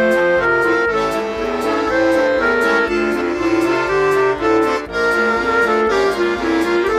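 Background music: a traditional-style tune with an accordion melody over a steady beat.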